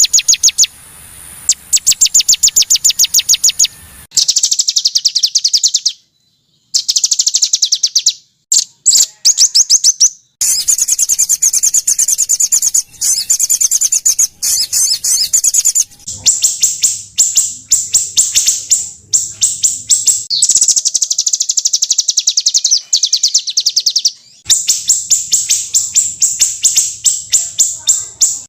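Small songbirds giving harsh, rapid-fire chattering trills. Each trill is a string of sharp, high notes repeated many times a second, coming in bursts with short breaks, several of which end abruptly.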